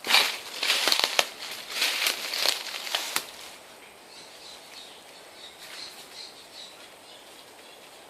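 Rustling and crunching of a person pushing through dry undergrowth, with a few sharp snaps. The sound eases off to a quieter rustle after about three seconds.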